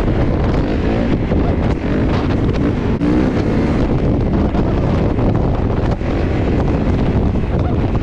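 Kawasaki KX450 dirt bike's single-cylinder four-stroke engine running while riding, its pitch wavering up and down with the throttle, under heavy wind buffeting on the microphone.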